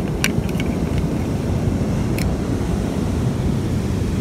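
Wind buffeting the microphone, a steady low rumble. A few light clicks sound in the first second and once about two seconds in, from a small plastic toy car being handled in a plastic mould.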